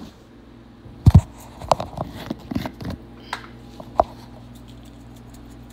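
Kitchen handling noise: a cluster of knocks and clicks over about two seconds, the loudest a low thump about a second in, then a single sharp click a second later, over a low steady hum.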